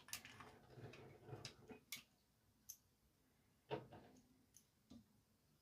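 Faint, scattered clicks and taps of small plastic parts of a toy bubble gun being handled during reassembly, the loudest nearly four seconds in.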